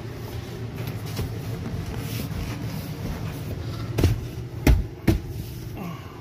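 Three sharp knocks close together, from the dinette bench's lift-up seat panel and cushion being handled and set back in place, over a steady low hum.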